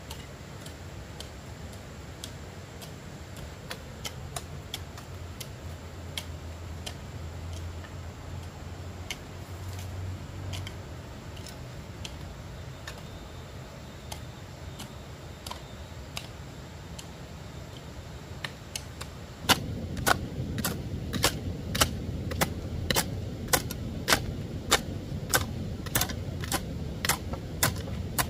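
Scattered light taps, then from about twenty seconds in a steady run of sharper knocks, a little over two a second, over a low rumble.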